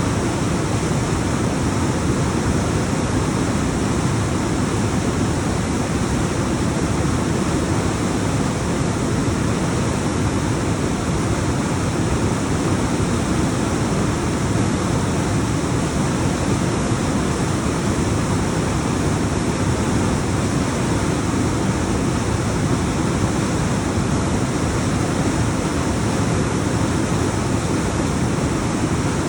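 Alpine waterfall: water tumbling down rocks in a steady, continuous rush, heaviest in the low range.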